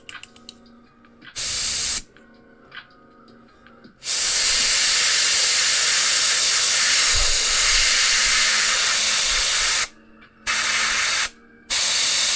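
Airbrush spraying thinned paint in bursts of air hiss that start and stop sharply: a short burst about a second and a half in, a long burst of about six seconds from about four seconds in, then two shorter bursts near the end.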